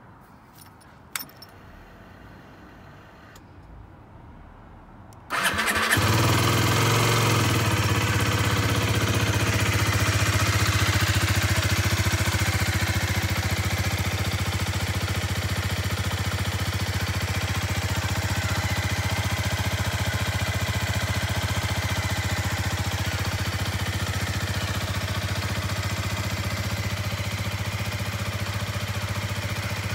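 Aprilia RS4 125's single-cylinder four-stroke engine starting up suddenly about five seconds in, after a small click about a second in, then idling steadily. It is slightly louder for the first several seconds before settling.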